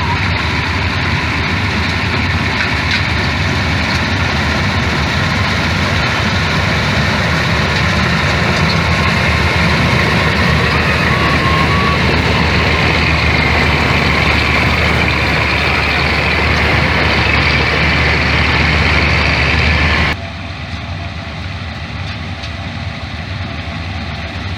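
Combine harvester running steadily at work, a loud continuous engine and machinery noise; about twenty seconds in it drops suddenly to a quieter level and carries on.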